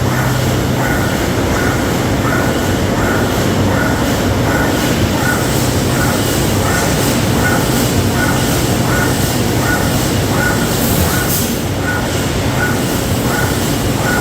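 Continuous wire mesh welding machine running in production, with a steady mechanical noise and a regular beat a little under twice a second. That beat matches the machine's stated 110 welding strokes a minute.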